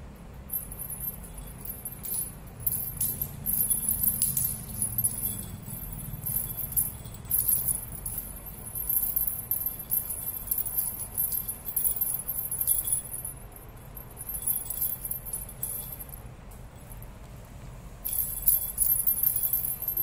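Small jingle bells jingling in irregular bursts as a cat bats, chases and grabs a feather wand toy, with a quieter lull and then a busy flurry of jingling near the end.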